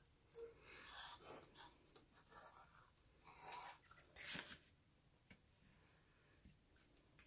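Faint rustling of cardstock being handled as linen thread is wrapped around a card, with a slightly louder rustle about four seconds in.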